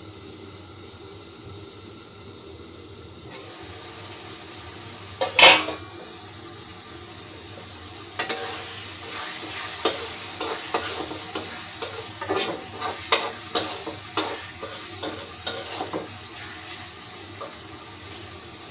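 Spice paste (masala) sizzling as it fries in oil in a pan, with one loud metal clank about five seconds in, then a spatula stirring and scraping against the pan in quick strokes for several seconds. The masala is being cooked down until the oil separates.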